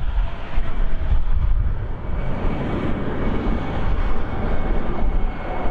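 Boeing 747 freighter's four jet engines running at climb power after takeoff: a deep, uneven rumble with a faint steady whine above it.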